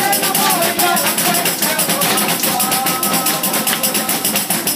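Galician pandeireta (frame tambourine with jingles) played in a fast, even rhythm, with a voice singing over it.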